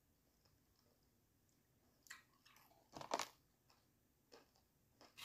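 Chewing crispy fried chicken: near silence at first, then, from about two seconds in, several short crunches, the loudest a little past the middle.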